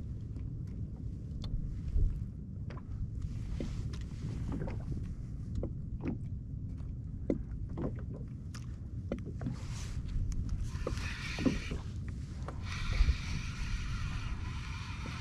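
Low rumble of water and wind around a fishing kayak, with scattered light knocks on the hull. From about eleven seconds in, a spinning reel is cranked as a hooked fish is reeled up from the bottom.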